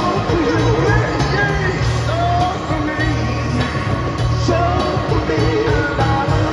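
Live rock band playing in concert: heavy pulsing bass, regular drum hits and a sung melody line over the band, loud throughout.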